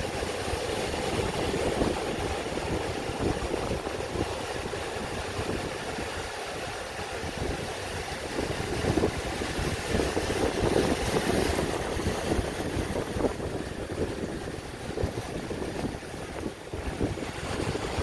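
Small ocean waves breaking and washing over shoreline rocks, swelling louder as a wave of surf rolls in about ten seconds in. Wind buffets the microphone with an uneven low rumble.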